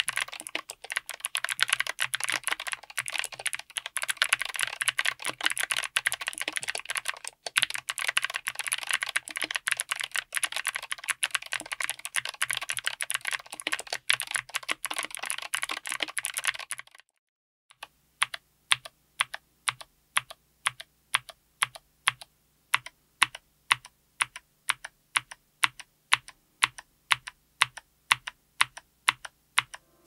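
Gateron Melodic clicky switches with click leaves, on a 60% keyboard with MT3-profile PBT keycaps, an FR4 plate and an aluminum case. Fast continuous typing for about seventeen seconds, then after a short pause single keys are pressed and bottomed out one at a time, about two strokes a second.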